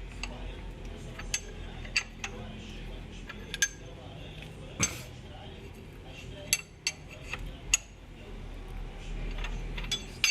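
Sharp metallic clinks and knocks, about a dozen at irregular spacing, from a Ford Ka three-cylinder engine being turned over by hand. This is the 'tec-tec' from the number one piston knocking in its bore, which the mechanic puts down to a seized piston pin letting the skirt slap the cylinder wall after overheating.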